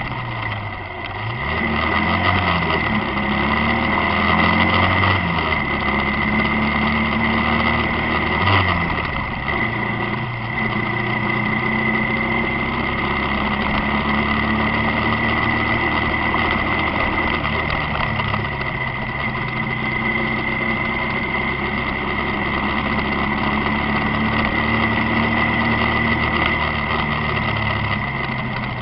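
Motorcycle engine running on a highway, its pitch rising and falling several times through the first few seconds as the rider changes speed and gear, then settling into a fairly steady note. A steady high whine runs alongside it, and there is a single knock about eight seconds in.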